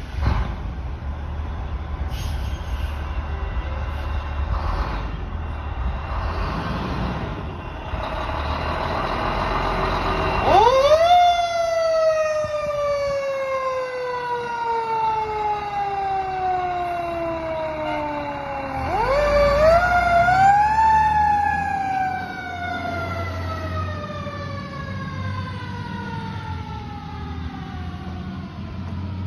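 Fire engine's Federal Q mechanical siren winding up twice, about ten seconds in and again near twenty seconds. Each time it rises quickly to a high wail and then slowly coasts down in pitch, and the second has a few quick pulses at the top. Before the first wind-up, the fire truck's engine runs with a low rumble as it pulls out.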